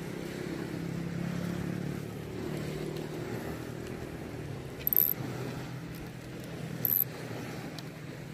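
A boat engine running steadily, a low wavering hum, with two brief high-pitched squeaks about two seconds apart.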